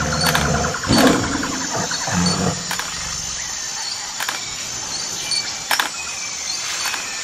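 A few low animal growls in the first half, over a steady rough hiss with scattered sharp clicks.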